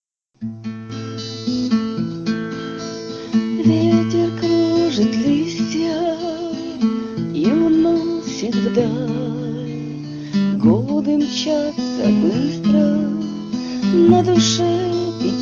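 Instrumental intro to a song: acoustic guitar strumming chords under a held, wavering melody line, starting about half a second in.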